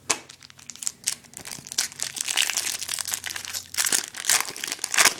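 Foil trading-card pack wrapper crinkling and tearing as it is opened by hand, in a dense run of crackles that grows busier about two seconds in.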